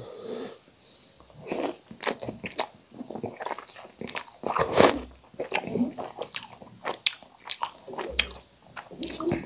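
Close-up eating sounds of a person slurping spicy instant noodle soup and chewing it wetly, a string of short slurps and smacks with the loudest about five seconds in.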